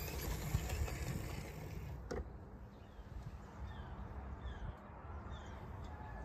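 Wind buffeting the microphone outdoors, with a small bird chirping repeatedly in short falling notes from about two seconds in, and a single sharp click just before the chirps start.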